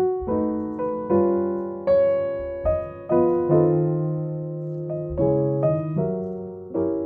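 Background piano music: a slow melody of struck notes and chords, each fading away before the next.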